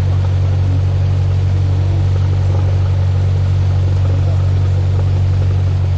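Single-engine Cessna's piston engine and propeller running steadily: a loud, even drone heard from inside the cabin.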